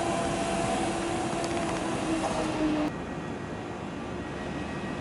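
Electric multiple unit 36WEd (Newag Impuls) running along the platform, its electric drive giving a steady multi-tone whine over wheel and running noise. About three seconds in, this cuts off abruptly to the quieter, steady running hum of a Pesa Dart ED161 electric train pulling in.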